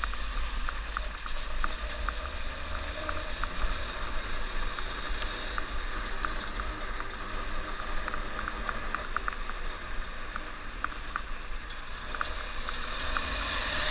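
Snowmobile riding at speed, its engine and track running steadily under heavy wind buffeting on the camera microphone, with many small irregular ticks throughout.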